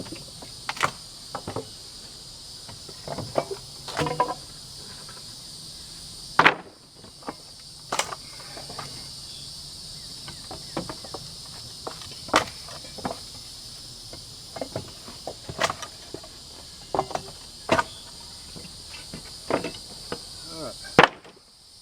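Boards being pried off a wooden pallet with a steel pallet dismantling tool: repeated sharp knocks and cracks of wood and nails, the loudest about six times, over a steady chorus of insects.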